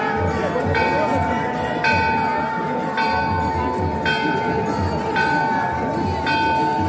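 Temple bell struck about once a second during the aarti, each stroke ringing on over a steady high tone and a low regular beat, with the crowd's voices underneath.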